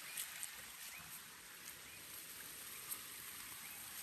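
Faint, steady rush of a small stream spilling over a low cascade into a pool, with a few faint short chirps.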